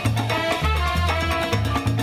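Salsa music playing loudly with a repeating bass line and percussion under melodic lines.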